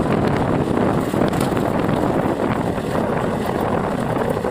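Train running, heard from an open coach doorway: a loud, steady rumble of wheels on the track mixed with wind buffeting the microphone.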